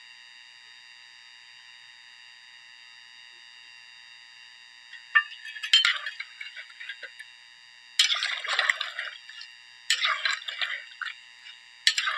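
Potato chunks dropped into meat broth in an aluminium pot, splashing four times about two seconds apart, starting about five seconds in. A faint steady hiss lies under them.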